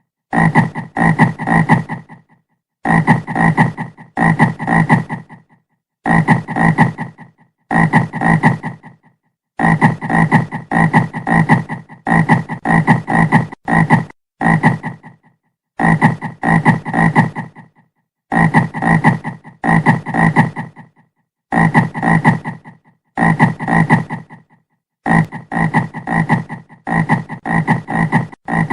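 A frog croaking over and over, in quick runs of about three to six croaks with short silent pauses between the runs.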